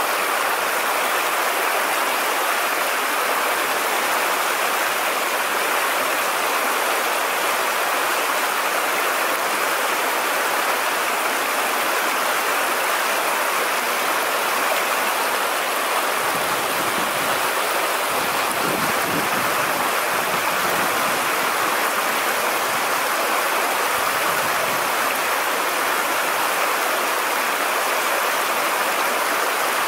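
Steady rushing of flowing stream water over shallows, an even hiss with no break, with a low rumble underneath for several seconds past the middle.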